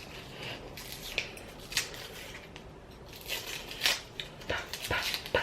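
Small hard objects being handled: a series of crackles and sharp taps, sparse at first and clustered in the second half, as letter tiles and a frame are picked up and fitted together.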